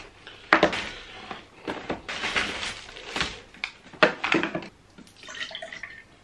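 Paper fast-food bag rustling and crinkling as takeaway boxes are pulled out and set down on the table with a few sharp knocks, the loudest about half a second and four seconds in. Near the end, a drink is poured from a bottle into a cup.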